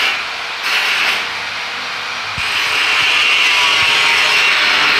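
Handheld electric power tool working on a steel stair railing: it runs briefly, stops, gives a short burst about a second in, then runs steadily from about halfway through.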